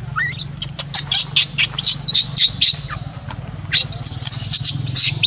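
A bird chirping in quick, high-pitched notes, a run of them from about a second in and another near the end, over a steady low hum.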